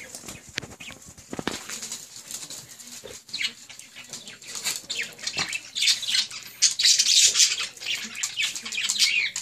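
Small dogs whining in short, high squeaks while being hand-fed, mixed with quick wet chewing and lip-smacking; busier and louder in the second half.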